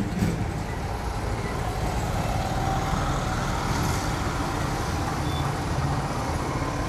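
Steady low background rumble of motor traffic, with no distinct events.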